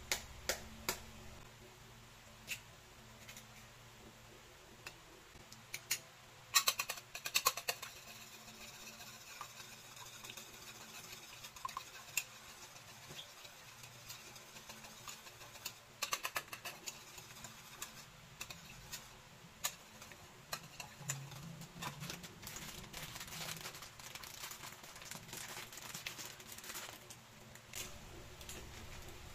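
Egg cracked on a ceramic bowl, then a wire whisk beating eggs in the bowl: rapid clicking and tapping of the wires against the bowl, densest in the second half.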